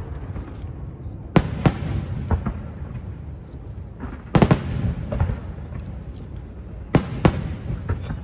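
Aerial fireworks shells bursting in a test firing: sharp bangs, two about a second in, a quick cluster near the middle and two more near the end, over a steady low rumble.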